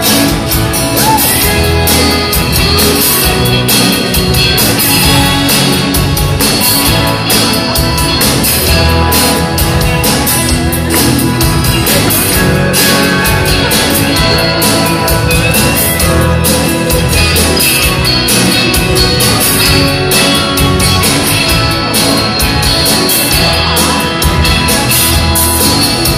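Live band playing the instrumental introduction of a song: strummed acoustic guitar over bass with a steady beat, before the vocals come in.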